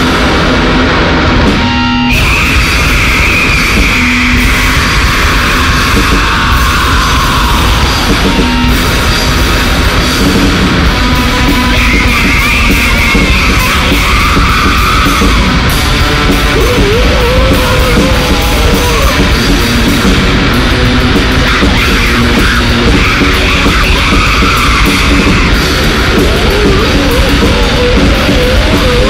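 Loud, dense grindcore music.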